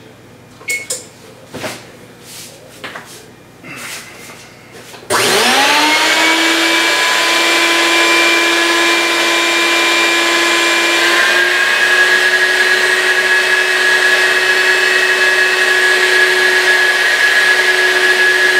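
A few knocks and clicks, then, about five seconds in, a shop vacuum is switched on. It spins up with a rising whine and runs steadily, drawing a heated plastic sheet down over a window plug on a vacuum-forming box. Its pitch steps up slightly about halfway through.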